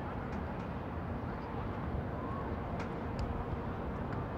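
Outdoor football-pitch ambience: a steady low rumbling background noise with faint distant voices. About three seconds in come two soft knocks, less than half a second apart, of footballs being kicked.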